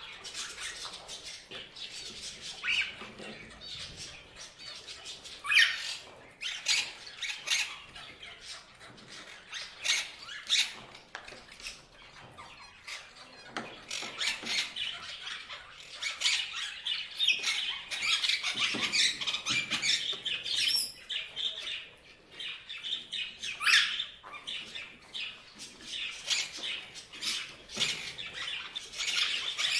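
Parrots chirping and squawking: a dense, busy run of short, high chirps, broken every few seconds by a louder, sharper squawk.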